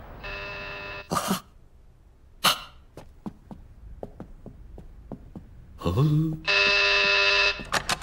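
Electric doorbell buzzing twice: a ring of under a second, then a second ring of about a second near the end. Between them come scattered light taps and a brief vocal grunt.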